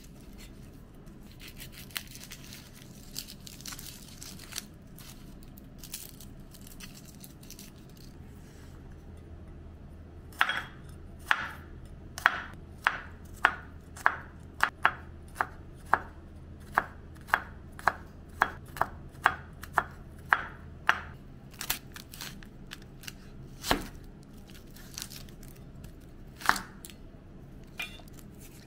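Kitchen knife chopping garlic on a bamboo cutting board: soft scattered cuts at first, then about ten seconds in a steady run of sharp chops, about two a second, followed by a few single cuts near the end.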